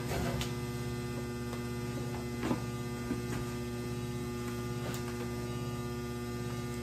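Steady electrical mains hum, with a couple of faint knocks about two and a half and five seconds in.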